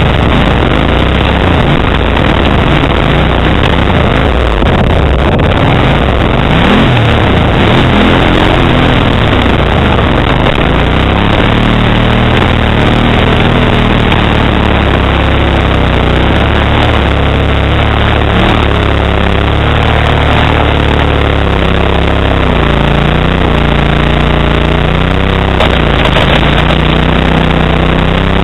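Kawasaki Brute Force 750 ATV's V-twin engine through a Muzzy aftermarket exhaust, running loud and close, its revs rising and falling over and over as it is ridden.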